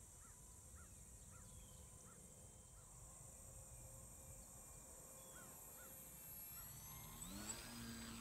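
Faint whine of an RC plane's E-flite Park 370 electric motor. It is barely audible at first, then rises in pitch about seven seconds in and settles into a steady tone as the plane passes low.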